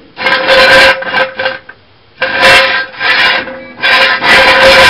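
Red steel jack stand scraped and shifted on concrete as it is set under a truck's rear axle: a series of rough scrapes, each about half a second long, roughly once a second.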